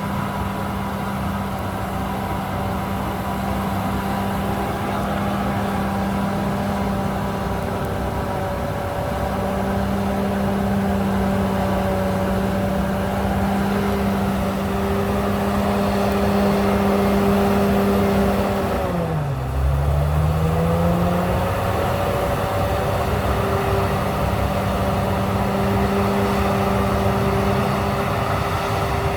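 Komatsu D68ESS crawler bulldozer's diesel engine running steadily under working load. About two-thirds of the way through, the engine speed drops sharply and then climbs back up.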